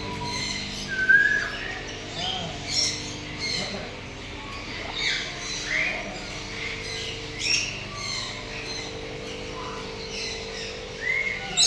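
Birds calling: a scatter of short squawks and chirps, some rising or falling, from several birds at once. A faint steady hum runs underneath.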